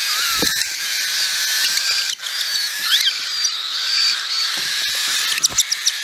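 Baby cockatiels begging for food: a loud, continuous raspy hissing with thin wavering whistle-like tones over it, turning into a quick run of short chirps near the end.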